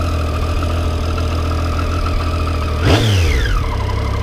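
Triumph Street Triple 675R inline-three engine on its stock exhaust, idling steadily. About three seconds in, the throttle is blipped once: the revs shoot up and fall straight back to idle.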